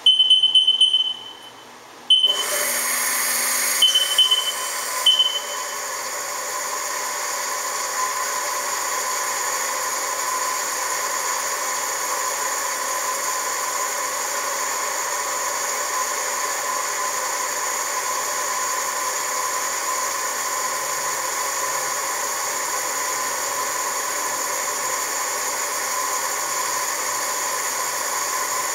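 Haas TM-1 CNC mill: a loud electronic beep from the control as a key is pressed, then about two seconds in the machine starts running with a steady whine. A few more short beeps follow in the next few seconds.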